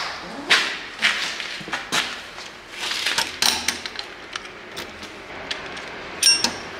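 Clicks and knocks of a key and a motorcycle wheel lock being handled, with a short metallic ring near the end.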